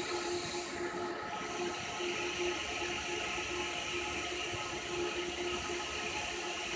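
Cordless drill running at a steady speed to drive a fiber blowing head, pushing air-blown fiber into its tube: a steady hiss with a faint hum that comes and goes.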